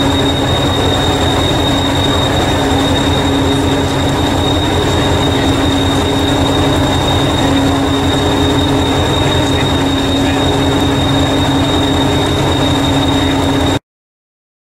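Class 201 'Hastings' diesel-electric multiple unit idling at a platform: a steady, fast engine throb with a high whine above it, cutting off abruptly near the end.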